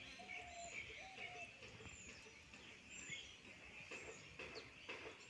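Faint bird calls: short high chirps repeating about once a second, with a few lower whistled notes in the first second and a half. A few soft clicks come between four and five seconds in.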